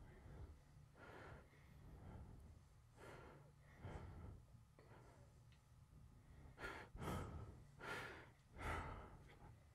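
A woman breathing heavily in a run of sighs, the breaths growing louder and coming closer together in the last three seconds, over a low steady hum.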